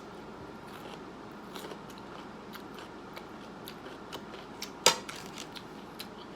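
Close-up eating sounds: chewing food, with scattered small clicks and one sharper, louder click about five seconds in.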